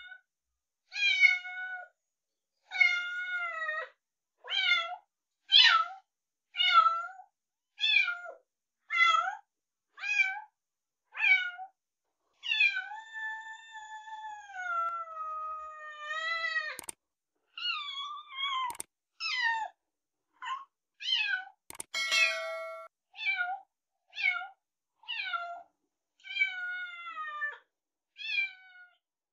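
Very young kittens meowing: high, thin meows about once a second, with one long drawn-out meow of about four seconds near the middle. A few brief sharp clicks come in the second half.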